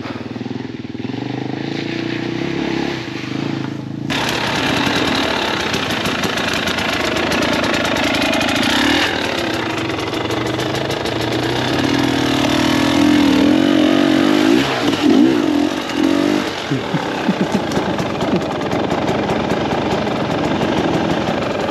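Two-stroke KTM 300 EXC enduro motorcycle engine running at low speed over rough trail, heard from the rider's helmet. It gets louder about four seconds in, and the revs rise and fall in quick blips further on.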